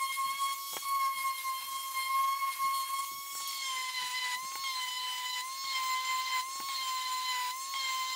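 Electric random orbital sander running on a hardwood cutting-board blank: a steady high motor whine whose pitch wavers slightly now and then.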